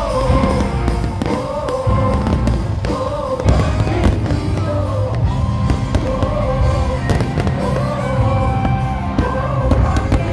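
Fireworks display: repeated bangs and crackling from aerial shells and fountains over loud music with a strong bass and a sustained melody line.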